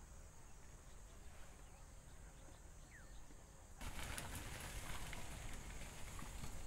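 Quiet rural ambience, a steady high hiss over a low rumble, with a faint bird call about three seconds in. Almost four seconds in it changes abruptly to a louder outdoor ambience full of small irregular clicks and rustles.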